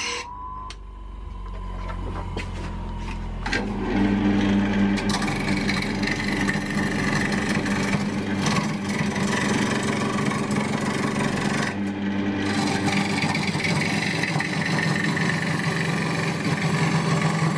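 Wood lathe spinning an ash bowl blank while a turning chisel shaves it down: a steady motor hum under the scraping hiss of the cut. After a quieter opening, the cutting sets in a few seconds in and breaks off briefly about two-thirds through.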